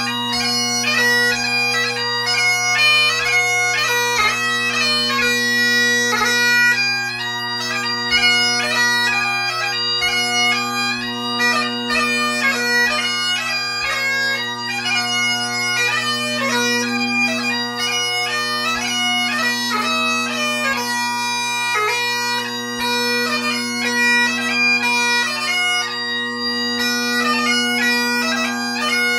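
Great Highland bagpipe played solo: the drones hold a steady low note under a chanter melody that moves quickly from note to note.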